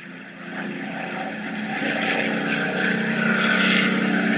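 Propeller aircraft engine droning at a steady pitch, growing steadily louder as it approaches.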